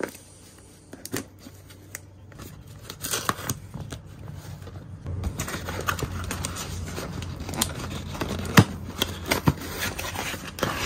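Cardboard mailing box being handled and torn open: sparse clicks at first, then busier scraping, tearing and rustling of cardboard and tape from about halfway, with one sharp click a little later.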